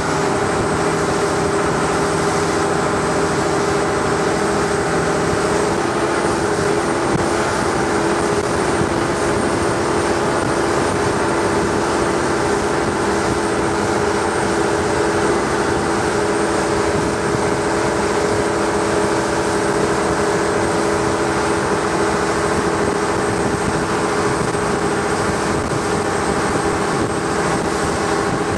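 Long-tail boat engine running at a steady cruising speed, one unchanging drone.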